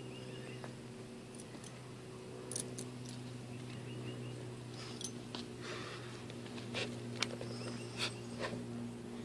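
A dog gnawing and chewing on a hard chew, with scattered short clicks and crunches that come more often in the second half, over a steady low hum.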